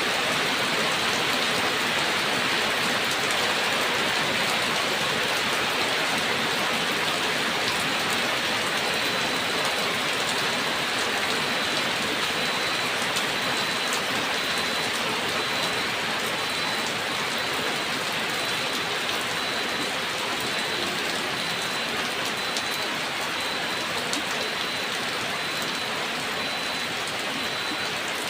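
Steady rain falling, an even hiss of drops with scattered individual drip ticks, easing very slightly toward the end.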